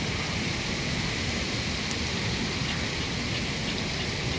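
Steady outdoor background hiss with no clear single source, and a few faint ticks in the second half.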